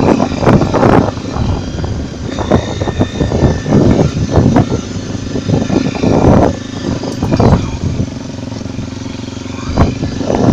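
Honda XR 250 Tornado's single-cylinder four-stroke engine running steadily as the bike is ridden, with irregular gusts of wind buffeting the microphone.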